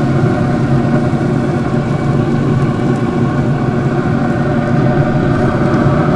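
Pellet grill running with a steady, unbroken mechanical hum, its combustion fan going as it holds the smoker at about 300°F.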